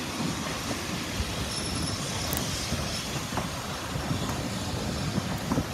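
Train carriages rolling past on the rails: a steady rumble of wheels with scattered faint clicks.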